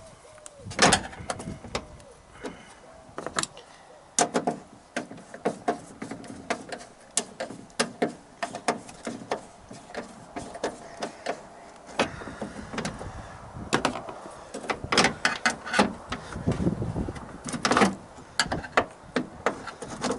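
Hand work on a pickup's stripped door: irregular sharp clicks and knocks of a hand tool against the steel inner door panel, with the plastic vapour barrier crinkling as it is pulled back. The knocks come thickest in the last few seconds.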